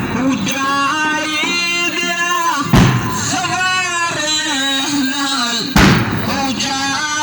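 A radood chanting a Shia mourning latmiya in a male voice, holding long, ornamented melodic lines. A heavy thump falls about every three seconds, twice.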